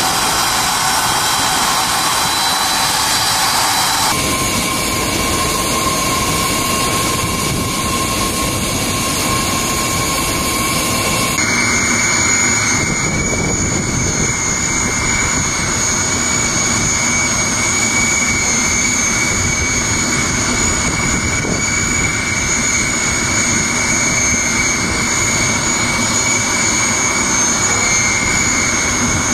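Steady jet turbine whine and rush from an Antonov An-124 running on the ground, with several high whine tones held level. The mix of tones shifts abruptly twice, about 4 and about 11 seconds in.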